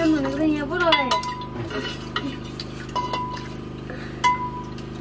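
A metal spoon scraping and clinking against a steel wok and steel dishes. A few sharp clinks, about one, three and four seconds in, each leave the metal ringing briefly.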